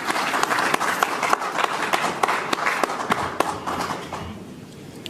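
Audience applauding, with scattered sharp clicks through it, dying away about four seconds in.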